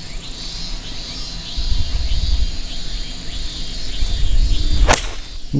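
A 5-iron striking a golf ball: one sharp, crisp click about five seconds in, over steady chirping of insects.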